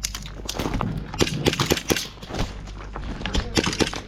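Airsoft guns firing: sharp cracks and clicks in short rapid bursts, with pauses between them.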